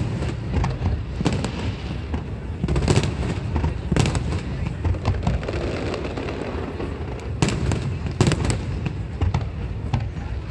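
Aerial fireworks display: a rapid run of bangs and crackles over a constant low rumble, with the loudest reports about three and four seconds in and again around eight seconds.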